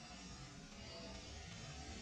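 Faint background music.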